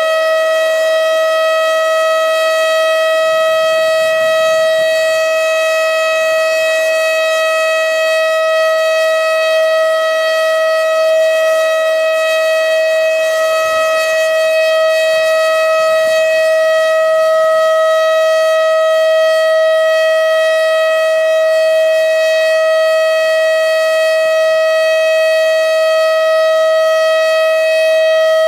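Federal Signal STH-10B outdoor warning siren sounding its steady Alert signal: one loud, unbroken tone that holds the same pitch without rising or falling.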